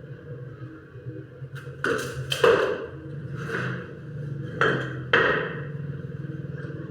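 Hammer knocks on wood, about five strikes spread unevenly from about two to five seconds in, over a steady low hum.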